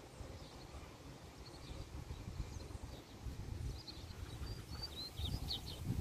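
Low, uneven rumble of wind on the microphone, with a few short, faint bird chirps near the end.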